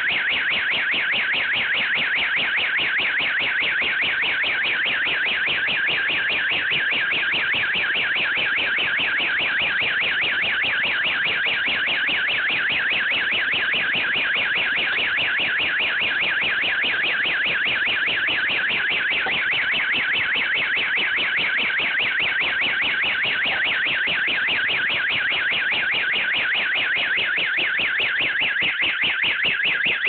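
Fire alarm sounding continuously: a shrill electronic alarm tone pulsing fast and evenly.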